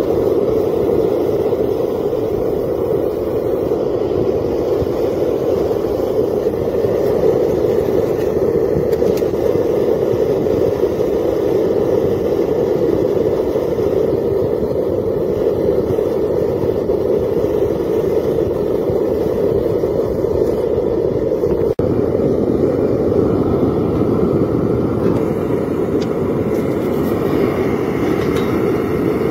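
Propane burner firing into a homemade furnace built from an old propane tank, giving a loud, steady rushing noise with a brief dip about 22 seconds in.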